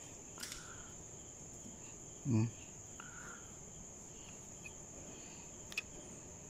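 Steady high-pitched trill of crickets, with a short murmur from a man about two seconds in and a couple of faint clicks.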